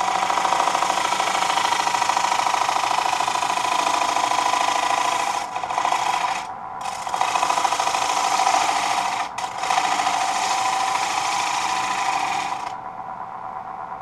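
Bowl gouge cutting a thin, microwave-dried alder plate spinning on a wood lathe: a steady hiss with a ringing tone. It drops out briefly about five and a half, six and a half and nine seconds in. The cut stops near the end, leaving the quieter sound of the lathe running.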